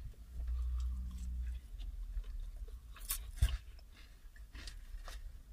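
Close-up chewing of fried chips and chicken: soft wet mouth clicks and crunches scattered through, with one dull knock about three and a half seconds in.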